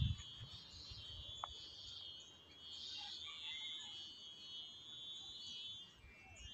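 Faint, steady high-pitched chirring of insects, with a few brief bird chirps.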